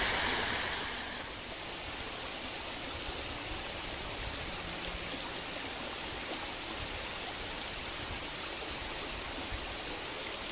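Water pouring over a small rocky cascade into a shallow stream, a steady rushing and splashing that becomes softer about a second in.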